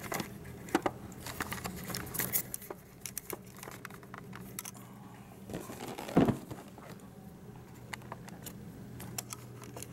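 A plastic-wrapped cardboard router box being handled: scattered crinkles, taps and clicks, and one louder thump about six seconds in as the box is laid down flat on a table.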